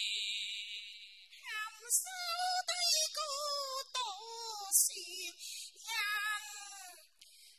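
A woman singing a Cantonese opera aria in a high voice, with long sliding, drawn-out notes.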